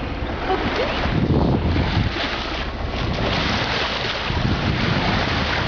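Wind buffeting the microphone over sea water washing around a moving sailing yacht: a steady rushing noise with no clear tones or knocks.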